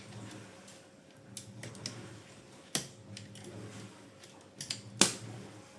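Scattered, irregular clicks and knocks of parts being unclipped and handled on a copier's intermediate transfer belt unit during disassembly, the loudest one about five seconds in, over a steady low hum.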